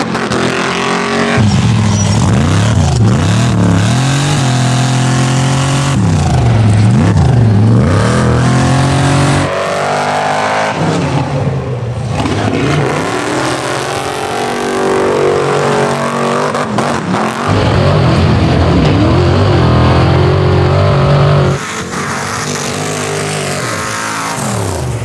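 Engines of an Ultra4 rock-racing buggy and a modified 1988 Ford Bronco II at full throttle in a head-to-head off-road run, revving hard with pitch rising and falling over and over. The sound changes abruptly at several points.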